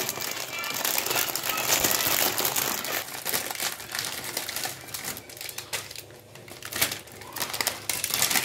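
Plastic film wrapping of instant ramen packets crinkling and crackling as hands handle the multipack and open a single packet, easing off briefly in the middle.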